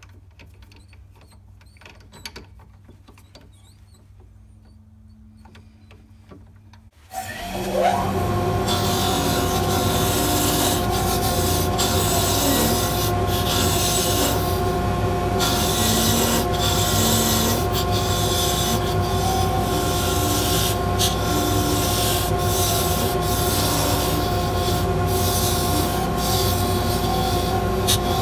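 A four-jaw chuck tightened with its key, a few faint clicks. About seven seconds in, the mini lathe starts and runs with a steady motor whine while a 1/8 inch parting tool cuts into the spinning spalted maple blank: a loud, constant scraping hiss that dips briefly every few seconds.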